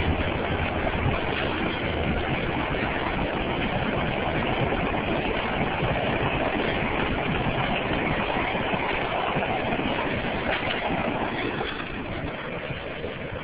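CSX office train's cars rolling past on the rails, a steady rush of wheel-on-rail noise that begins to fade over the last second or two as the train moves away.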